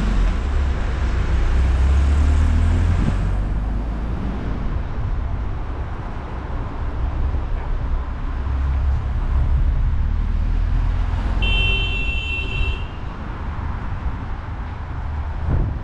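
Car driving slowly through town traffic, heard from a camera mounted on its roof: a steady low rumble of road and wind noise. A brief high-pitched tone sounds about twelve seconds in.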